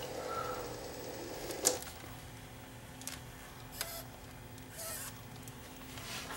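Sony CCD-TR71 8mm camcorder's tape mechanism whirring briefly and stopping with a click under two seconds in, followed by scattered button clicks and small mechanical clunks as the camcorder is switched from recording to playback.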